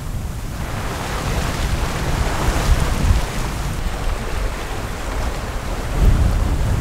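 Wind buffeting the microphone with a heavy low rumble, and water rushing along the hull of a sailboat under way; a broad rushing hiss swells about a second in and eases off a few seconds later.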